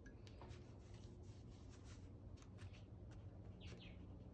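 Near silence with faint short ticks and light rubbing, from a cloth rag wiping wet acrylic paint off the painting's surface. A faint bird chirp comes near the end.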